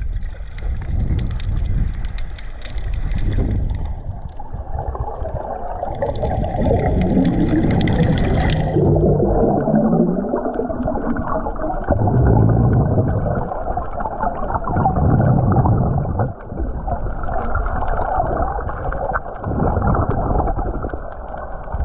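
Muffled underwater rumble and gurgling, as picked up by a submerged camera, with louder bubbling bursts every few seconds.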